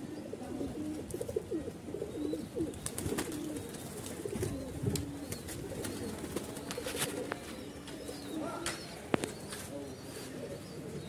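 Domestic pigeons cooing, low calls repeating one after another, with a few sharp clicks in between.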